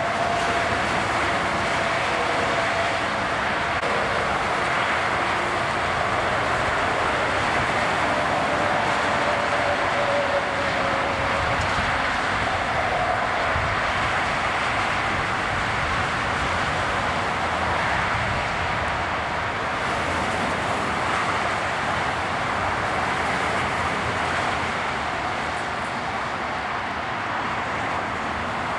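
Steady drone of idling vehicle engines, with a faint whine in roughly the first ten seconds that drifts a little lower in pitch and fades.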